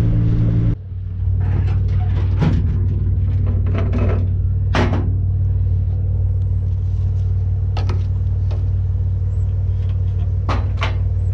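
Nissan Navara's VG30 3.0 V6 engine running steadily with a low hum, heard from around the vehicle, with a handful of short knocks and rustles from handling things over it.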